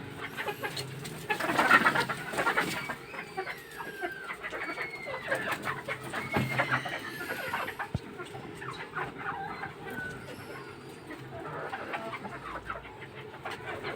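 Chickens clucking and calling, with a louder flurry of calls about two seconds in and several short rising-and-falling calls after it.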